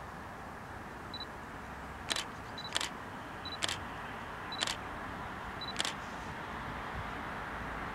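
A camera's autofocus beep followed each time by a shutter click, repeated about five times at irregular intervals of roughly a second. Underneath is a steady low rumble that slowly grows louder as a distant freight train approaches.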